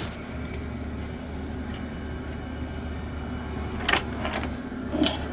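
A steady low hum, with a few sharp clicks or knocks about four and five seconds in.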